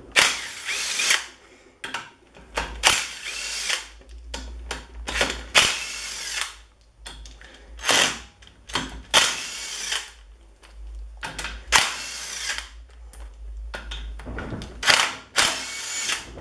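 A 13 mm socket tool running the side-cover bolts out of a BMW E36 rear differential, in about eight short bursts of whirring, clicking metal tool noise of up to a second each, with brief pauses between them.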